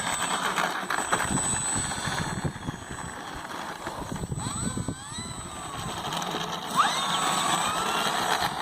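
Model aircraft's motor and propeller running, a steady buzzing whir with a whine that glides up and down in pitch a few times.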